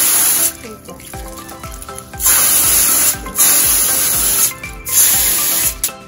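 Garden hose spray nozzle blasting water onto a foam filter pad, in several bursts with short pauses between.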